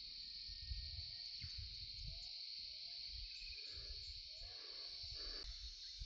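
Faint, steady high-pitched drone of insects in the grass, with uneven low rumbling on the microphone and a few short, faint rising chirps.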